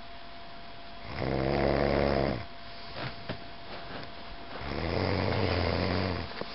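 A person snoring: two long snores, each about a second and a half, a few seconds apart, the second a little lower in pitch. A faint steady hum runs behind, with a couple of small clicks between the snores.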